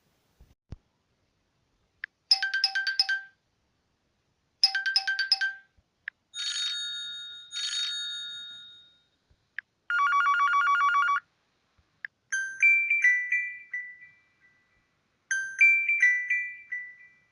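Huawei Y3 smartphone playing a string of short preset ringtones through its speaker, with brief pauses between them: a quick beeping pattern twice, two long ringing tones, a buzzy tone of about a second, then a falling chime melody twice.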